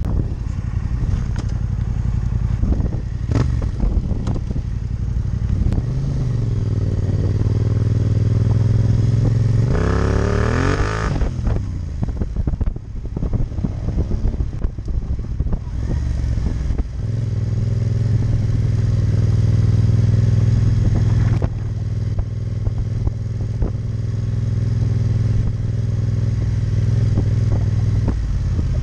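Yamaha MT-07 Tracer's 689 cc parallel-twin engine running at low speed on soft beach sand. Its pitch climbs under throttle and is cut back sharply about eleven seconds in, then it holds a steady note. Scattered knocks and clatter sound over it.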